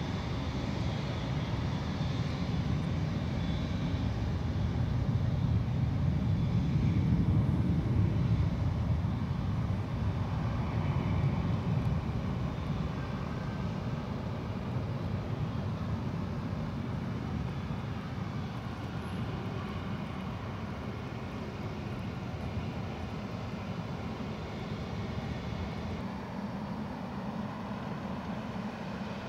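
Jet airliner passing: a low engine rumble with a faint high whine that swells to its loudest about seven or eight seconds in, then slowly fades away.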